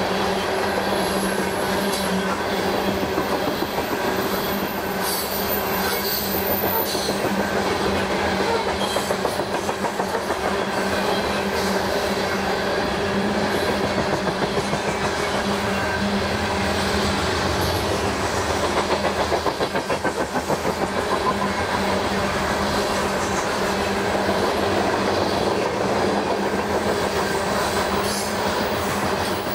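Loaded coal hopper cars of a freight train rolling past on steel wheels, a steady heavy rumble and rattle. In a couple of stretches the wheels click over the rail joints in a quick even rhythm.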